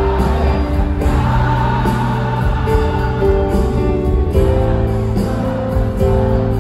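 Live band music with an acoustic guitar and a large crowd singing along together.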